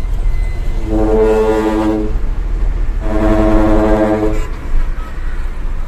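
Hino Ranger dump truck's ship-style trumpet air horn blown twice, each blast a steady chord about a second long, with the truck's engine running low underneath.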